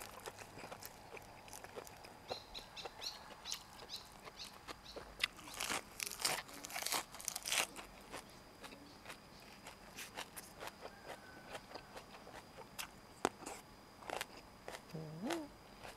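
Close-miked chewing of a fresh lettuce wrap with boiled pork uterus: crisp crunches and wet mouth clicks, thickest a few seconds in. There is a brief low hum near the end.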